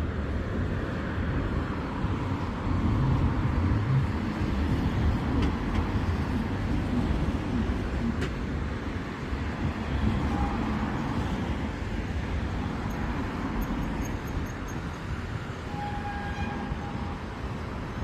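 Road traffic on a busy city street: a steady rumble of engines and tyres, swelling as vehicles pass.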